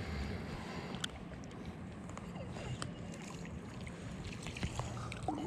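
River current washing and lapping around a wading angler's legs, a steady low rush, with a few light clicks.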